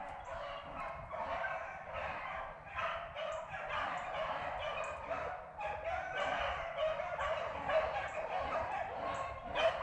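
A pack of beagles baying continuously, many hounds' cries overlapping as they run a rabbit's track.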